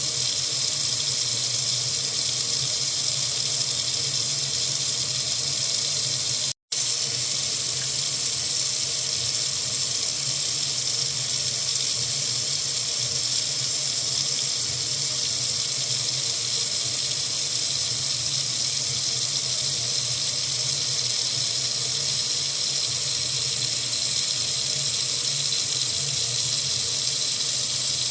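Water faucet running in a steady, unbroken stream, a constant hiss. A split-second gap of silence cuts in about six and a half seconds in.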